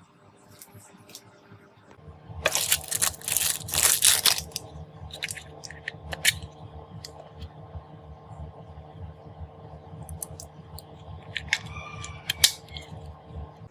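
Electric fan motor switched on and running with a steady hum and a fast, even pulsing of the blades. A burst of clattering and rustling handling noise comes between about two and four seconds in, with scattered sharp clicks after it.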